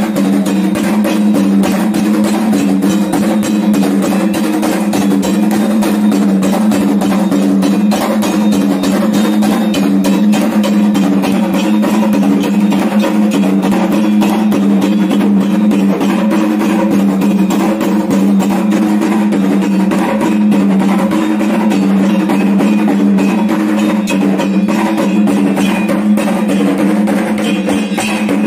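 Kendang drums beaten in a fast, unbroken rhythm, over a steady low ringing tone.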